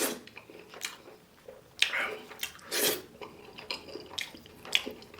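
Close-up eating sounds: wet mouth smacks and chewing in short, irregular bursts, with a few light clicks.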